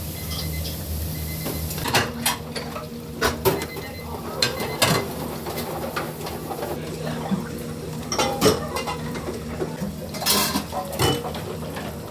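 Restaurant kitchen clatter: scattered clinks and knocks of dishes and utensils, a dozen or so spread irregularly, over a steady low hum.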